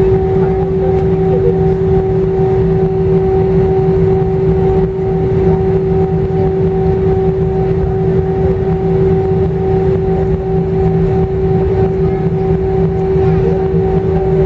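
Airbus A318 engines and airframe heard from inside the cabin while taxiing: a steady drone with a constant hum-like tone over a low rumble.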